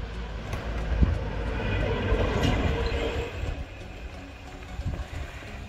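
A 36 V, 800 W electric kids' quad driving by on asphalt with its speed limited: the motor's whine and tyre noise swell as it passes closest, about two to three seconds in, then fade.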